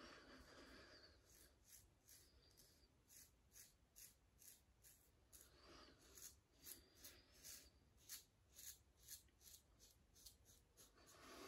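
Faint short scraping strokes of a double-edge safety razor (Rockwell Model T with a Gillette stainless blade) cutting stubble on the neck and chin, about two to three strokes a second, with a few softer rubbing sounds in between.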